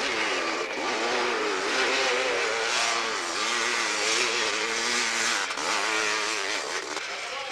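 Dirt bike engine revving hard under full throttle on a steep hill climb, its pitch rising and falling as the rear wheel grabs and spins.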